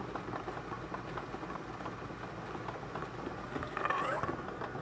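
Bingo ball blower running, its air rushing steadily while the balls clatter with many small irregular clicks; a louder rattle comes about four seconds in.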